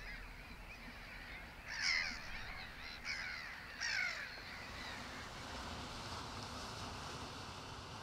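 Black-headed gulls giving a few short, harsh calls, the loudest about two seconds in. The calls stop about halfway through, leaving a steady outdoor hiss.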